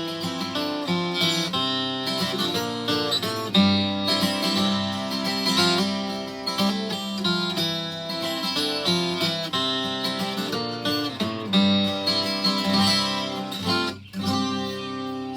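Yamaha FG820-12 twelve-string acoustic guitar being played, its notes and chords ringing on with a brief dip in loudness about fourteen seconds in.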